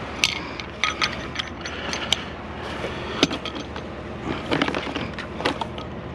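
Irregular clicks, rattles and knocks of a discarded item being handled and pulled apart for scrap, over a steady low hum.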